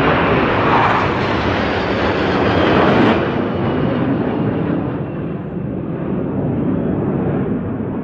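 Jet engine noise of a low flyover by a large four-engine transport jet and a formation of smaller jets. It swells to its loudest about three seconds in, then fades and grows duller as the aircraft move away.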